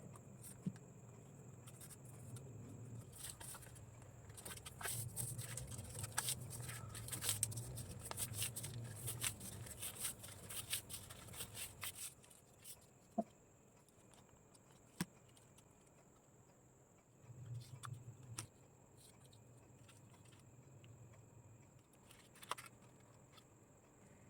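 Sheets of paper being handled and folded: a run of crisp crackles and rustles for several seconds, then a few separate clicks. A faint low hum and a thin high whine sit underneath.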